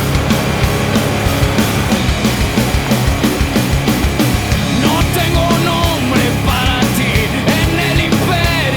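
Loud rock band music with a steady, driving drum beat. A wavering melodic line comes in about five seconds in.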